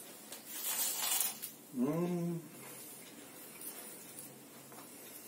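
A bite and chewing of crisp toasted bread spread with garlic sauce, then one short hummed "mmm" rising slightly in pitch about two seconds in.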